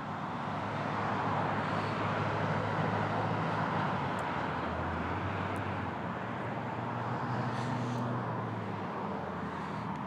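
A vehicle engine running steadily, with a low hum that shifts in pitch a few times under a broad rushing noise.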